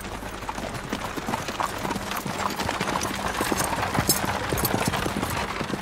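Hooves of horses drawing a carriage clip-clopping at a walk, a dense run of knocks that grows louder about halfway through.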